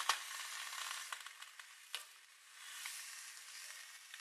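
Water sizzling and crackling on a hot electric coil burner under a wet saucepan: a steady hiss with sharp clicks, one near the start and one about two seconds in.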